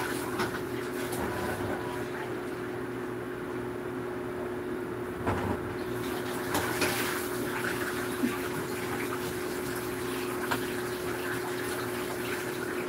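Water running steadily, with a constant hum under it and a few light clicks and knocks scattered through the middle.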